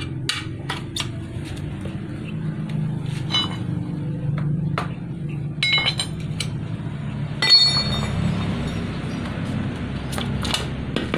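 Steel tyre lever clinking and scraping against a spoked motorcycle wheel rim as the tyre bead is pried off, with scattered knocks and two sharper metallic rings around the middle, the second the loudest. A steady low hum runs underneath.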